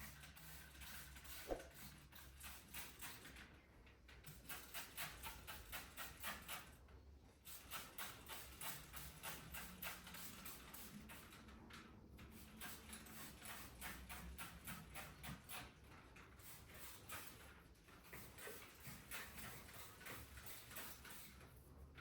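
Faint, rapid clicking, a few ticks a second, with short pauses; no steady vacuum motor noise.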